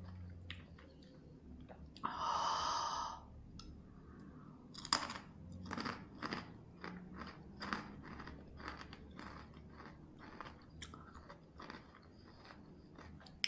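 A person biting and chewing crunchy food up close. There is a loud crunch lasting about a second about two seconds in, then steady crunchy chewing at one or two crunches a second.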